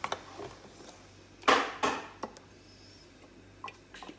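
Kitchen handling sounds as a glass bottle of cooking oil is fetched and tipped over a frying pan: a click at the start, two short clattering knocks about a second and a half in, then a few faint ticks near the end.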